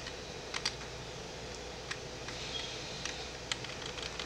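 Computer keyboard keys clicking a handful of times at uneven intervals, over a steady low hum in the room.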